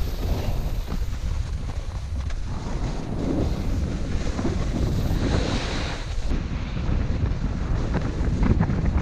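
Wind rushing over the microphone of a camera worn by a snowboarder riding fast down a groomed run, with the hiss and scrape of the board sliding over the snow. The hiss swells briefly about five seconds in.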